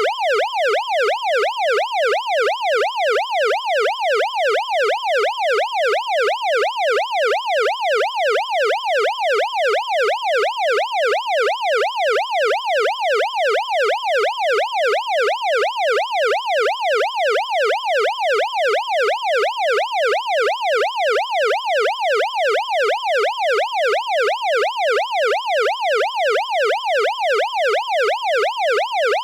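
Electronic police siren in yelp mode: a rapid up-and-down wail of about two to three sweeps a second, repeating steadily without change.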